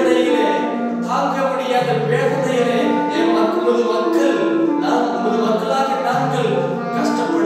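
A man singing a slow, chant-like melody in long held notes, with a clarinet playing along above the voice.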